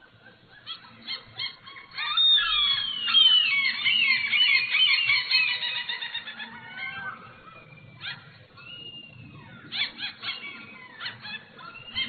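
Gulls calling: a dense chorus of many overlapping high, sliding calls starts about two seconds in and dies away by about seven seconds. A few scattered calls and sharp clicks follow near the end.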